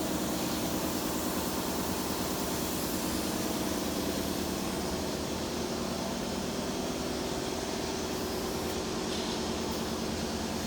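A steady mechanical drone with a low hum, unchanging throughout.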